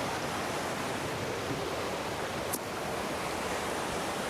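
Waterfall pouring into a pond, a steady rushing of water.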